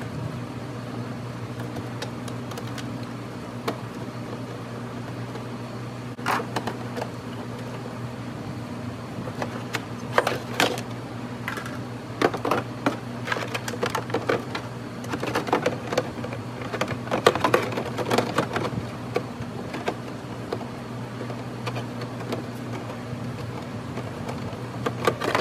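Hard plastic fender-well parts of a C5 Corvette being handled, scraped and pressed into place by hand: scattered clicks, rattles and scrapes from about six seconds in, busiest in the middle, over a steady low hum.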